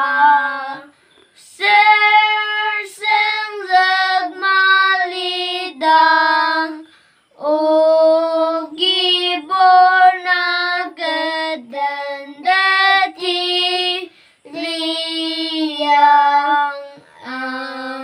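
Two young boys singing a hymn together without accompaniment, in long held phrases with short pauses for breath between them.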